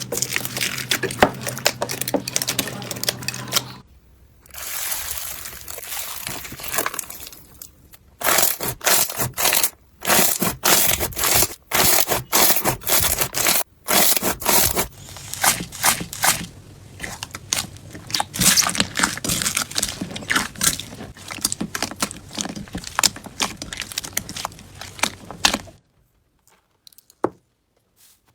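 Slime being squeezed and poked by hand, giving dense crackling clicks and pops that change character several times as one clip gives way to the next. It falls to near silence about two seconds before the end, with one last click.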